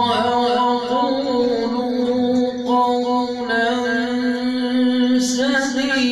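A young man reciting the Quran in a melodic tajweed style, holding one long note with wavering ornaments that shifts pitch a little past the middle.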